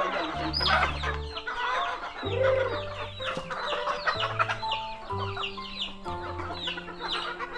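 Domestic chickens clucking, many short calls in quick succession, over background music of slow held notes.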